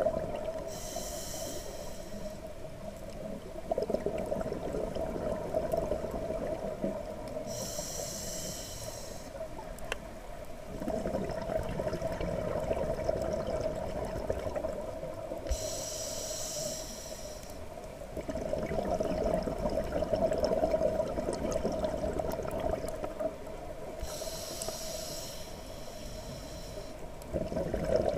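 Diver breathing through a scuba regulator underwater: a short hissing inhale about every eight seconds, four times, each followed by a longer rush of exhaled bubbles.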